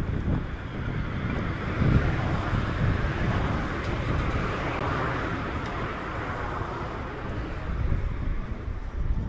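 A car passing on the road, its tyre noise swelling and then fading about halfway through, over a gusty low rumble of wind on the microphone.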